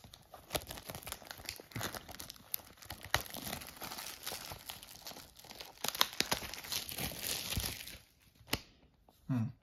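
Plastic shrink wrap being peeled and crumpled off a Blu-ray case, crackling for about eight seconds, then a single click.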